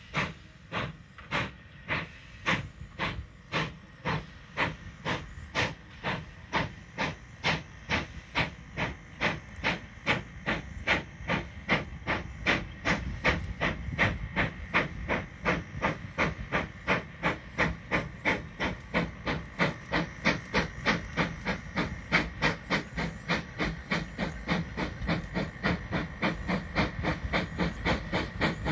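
Narrow-gauge 4-6-0 steam locomotive No. 168 working a passenger train: an even beat of exhaust chuffs that quickens from about one a second to two or three a second, over a constant hiss of steam, growing a little louder as it nears.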